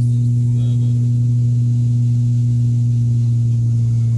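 Steady drone of an ATR 72 turboprop's engine and propeller in the climb, heard inside the cabin beside the engine: one strong low hum with a weaker tone above it over a low rumble.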